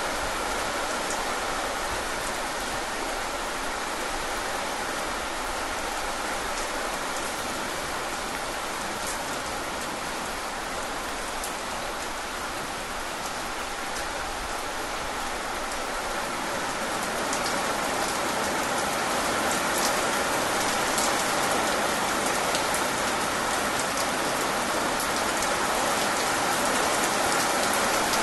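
Steady rain falling, with scattered sharp drop ticks through it, growing slightly louder about two-thirds of the way in.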